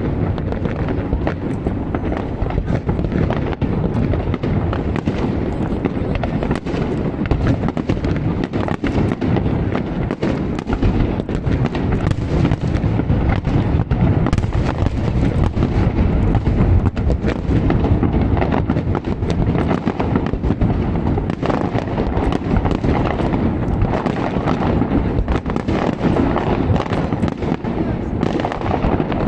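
Fireworks display: many sharp bangs in quick succession, overlapping one another over a continuous low rumble.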